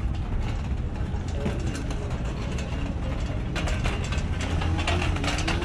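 Low, steady engine rumble of riverboats in a busy port. From about three and a half seconds in, a dense mechanical clattering of rapid clicks joins it, with a faint rising whine near the end.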